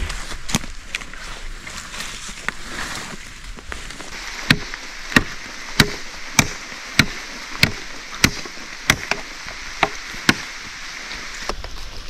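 A tool striking wood in a steady rhythm: about ten sharp knocks, a little over half a second apart, starting a few seconds in. Under them runs a steady hiss of rain.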